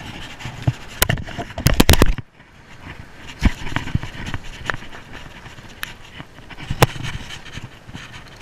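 Handling noise from gear being pulled out of a fishing tackle bag. Sharp clicks and knocks come in a quick loud cluster about one to two seconds in, then a few scattered clicks, over a steady rush of wind on the microphone that drops away suddenly just after two seconds.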